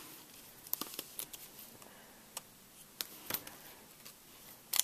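Scattered sharp clicks and taps of hard Lego plastic as the Lego rubber band gun is handled, about eight in all at irregular intervals, the loudest one near the end.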